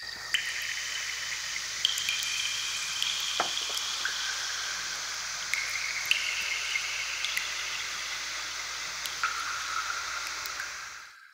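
Liquid running steadily with a high hiss and thin ringing tones that shift up and down in pitch, cutting off suddenly near the end.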